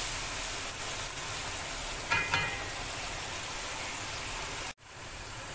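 Onion-tomato spice masala sizzling steadily in hot oil in a nonstick wok while it is stirred with a spoon, with a brief louder sound about two seconds in. The sound cuts out abruptly near the end, then the sizzling resumes.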